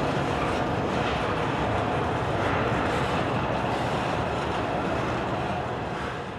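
Loaded coal hopper cars of a freight train rolling past, a steady noise of steel wheels on the rails, fading out near the end.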